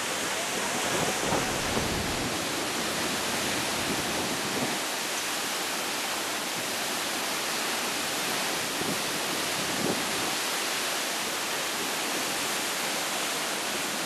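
Steady roar of a tall waterfall plunging into a rock gorge close by: an even, unbroken rush of falling water.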